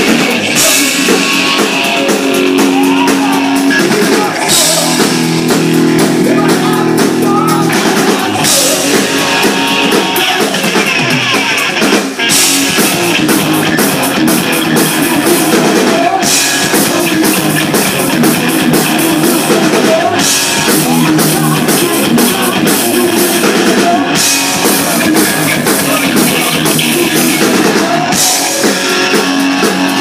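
Live rock band playing an instrumental passage: drum kit with a cymbal crash about every four seconds, electric guitar, bass guitar and keyboards, loud and steady, with held low notes from about four to eight seconds in.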